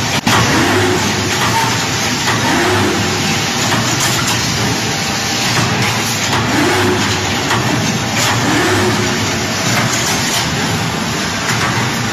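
Rebar straightening and bending machine running, its steady mechanical noise broken every few seconds by a short rising motor whine.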